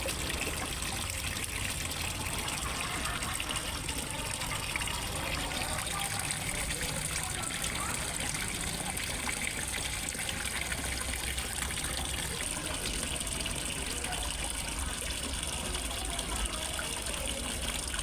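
Water falling into a fish pond, trickling and splashing in a steady, even rush.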